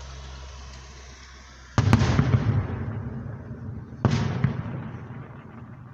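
Aerial firework shells bursting: two heavy bangs, the first about two seconds in and the second a little over two seconds later, each trailing off in a rumbling echo. A steady low hum sits underneath before the first bang.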